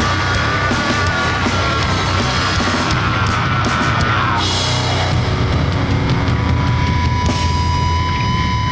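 Loud, distorted grindcore/noise music from a band recording. Held high tones over dense distortion drop in pitch about four seconds in, and a steady high tone sets in soon after.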